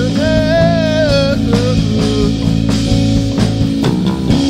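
Live band music: electric guitar and bass guitar with drums, with a wavering held melody note over the first second and a half.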